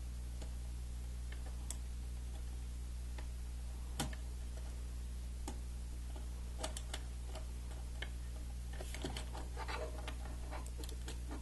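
Plastic LEGO Technic parts clicking as pins, beams and axles are handled and pressed together: scattered single clicks, then a busier run of clicks near the end, over a steady low hum.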